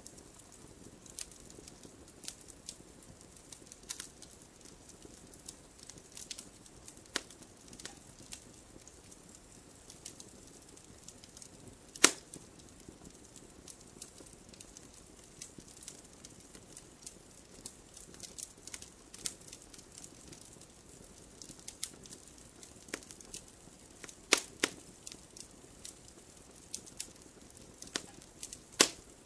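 Campfire crackling: irregular sharp pops and snaps over a faint steady hiss, with one loud pop about twelve seconds in and a few louder pops clustered near the end.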